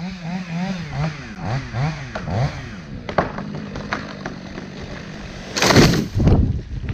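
Chainsaw running, its pitch rising and falling over and over as the throttle and load change, then settling to a steadier note. A loud rushing burst comes near the end.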